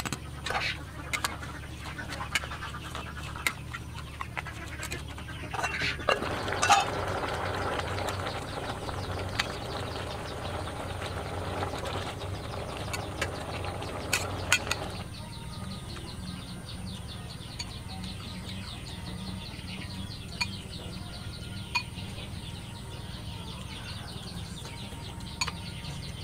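Cooking sounds around an aluminium soup pot: scattered sharp clinks of utensils against metal, with a stretch of rustling, pouring noise that stops abruptly about halfway through. Farmyard birds are faint in the background.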